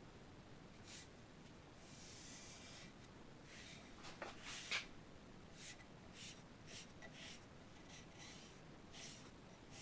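Faint scratchy rubbing strokes of hand-working the wooden gun stock, an abrasive or pad scuffing the surface; irregular at first, then a steady back-and-forth of about two strokes a second, with one sharper, louder scrape about halfway through.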